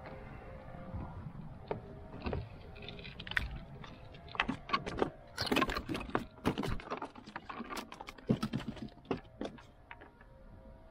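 Sharp irregular clicks, taps and light rattles of a fishing rod, reel and tackle being handled in a kayak, busiest in the middle few seconds.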